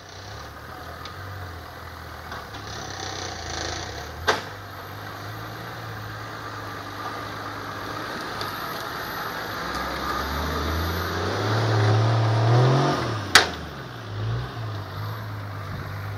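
Small off-road 4x4's engine running as it drives down a rough wooded slope. The engine revs up with a rising pitch about eleven to thirteen seconds in, then drops back. Two sharp knocks sound, one about four seconds in and a louder one about three seconds before the end.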